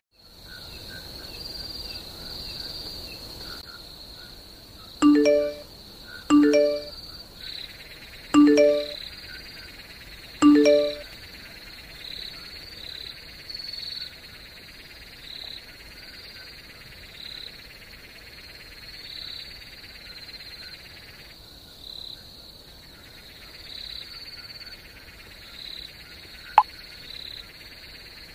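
Night chorus of frogs and insects: a steady high trill pulses throughout, and four loud frog croaks come about every one and a half to two seconds in the first half. A single sharp click sounds near the end.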